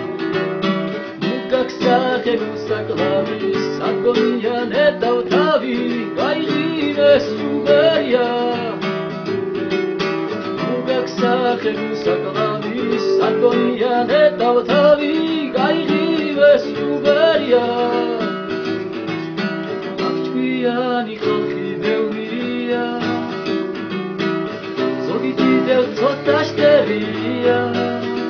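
A man singing a song while accompanying himself on a nylon-string classical guitar.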